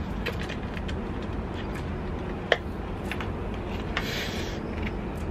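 Small cardboard-and-plastic package handled by hand: light clicks and crinkles, a sharp snap about two and a half seconds in and a brief rustle about four seconds in, over a steady low outdoor rumble.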